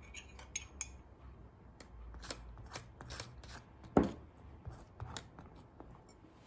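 Metal spoon spreading milk over a cake layer in a steel cake ring: a run of light scrapes and taps, with one sharper tap about four seconds in.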